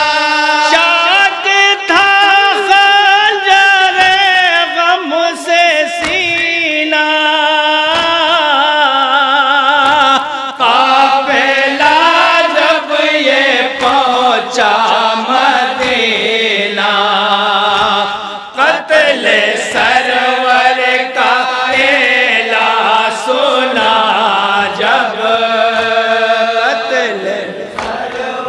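A group of men chanting a noha, a Shia mourning lament, in unison without instruments, sung into microphones with long wavering held notes.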